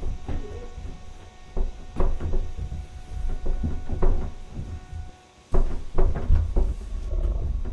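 Irregular heavy thuds and knocks over a low rumble, with a loud cluster of knocks about five and a half seconds in.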